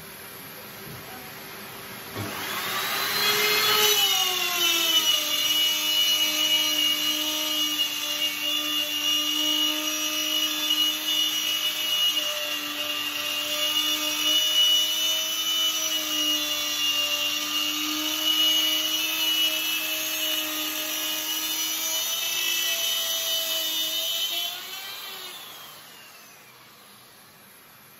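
Electric plunge router with an 8 mm straight bit cutting a rebate along a wooden snooker-cushion capping. About two seconds in it grows loud and rises in pitch, then runs steadily at a lower pitch as it travels along the timber. Near the end it is switched off and winds down.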